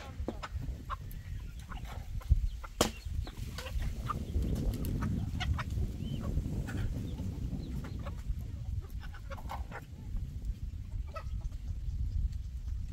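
Scattered short chirp-like animal calls and clicks over a steady low rumble.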